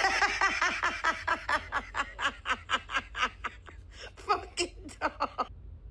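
A person laughing hard in quick repeated bursts, about four a second, loudest at first, then thinning out and stopping shortly before the end.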